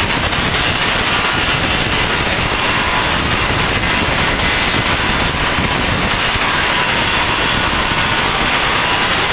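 Timber-splitting saw machine running loudly and steadily while ripping 4x2 timber lengthwise, an unbroken machine noise with faint steady whines over it.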